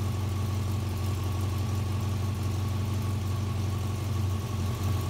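Air-cooled VW-type flat-four engine powering a home-built hydraulic log splitter, running steadily. A little past four seconds in, the note briefly dips and changes as the splitter's hydraulic valve lever is worked.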